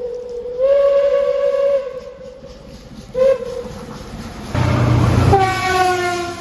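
Train horn sounding: a long held blast and a brief toot about three seconds in. Then a loud rush of noise as the train goes past, and the horn's pitch drops as it moves away.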